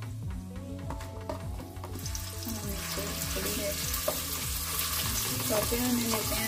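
Sliced onions sizzling in hot oil in a cooking pot while being stirred with a wooden spoon; the sizzle grows louder about two seconds in.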